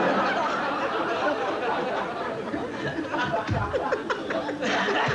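Several people laughing together at a joke, a dense, continuous wash of overlapping laughter.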